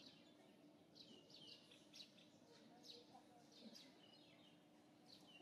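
Faint bird chirping: short high calls sweeping down in pitch, several a second, over a faint steady low hum.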